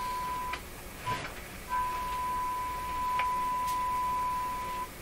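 A steady, even-pitched tone from the Hallicrafters S-40A shortwave receiver's speaker as the signal generator's test signal is tuned in. The tone drops out for about a second just after the start and again near the end as the tuning knob is turned, with a few faint clicks.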